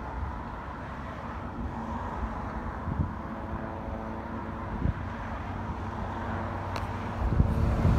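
Small light helicopter's engine running steadily on the ground, a low hum with a few steady engine tones. Wind buffets the microphone in the last second.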